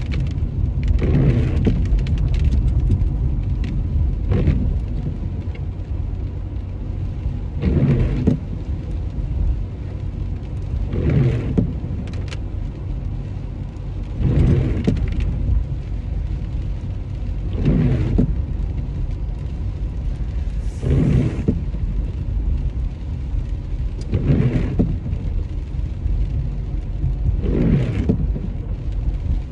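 Car cabin road noise, a steady low rumble, with a swishing sweep that comes back about every three and a half seconds.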